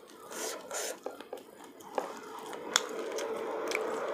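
Fingers pulling apart and peeling a sauce-coated cooked shrimp: soft wet squishes and a few sharp shell clicks. A steady low hum comes in about halfway through and keeps going.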